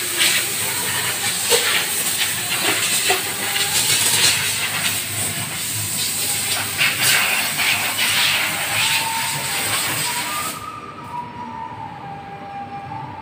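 A loud, steady hiss like rushing air, wavering a little, that cuts off abruptly about ten and a half seconds in, leaving a quieter background noise.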